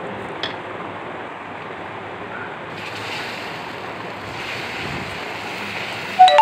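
Dosa batter sizzling with a steady hiss on a hot non-stick pan as it is ladled on and spread, the hiss growing brighter about three seconds in. Near the end there is a sharp ringing tone, the loudest sound here.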